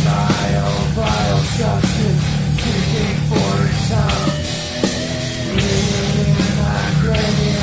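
Thrash metal instrumental: heavily distorted electric guitars and bass over fast drums, with bending guitar lead lines.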